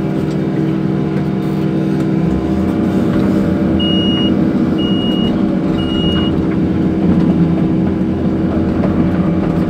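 Case CX220B hydraulic excavator's diesel engine running steadily, heard from inside the cab; its note shifts about two seconds in. Near the middle come three short high beeps about a second apart.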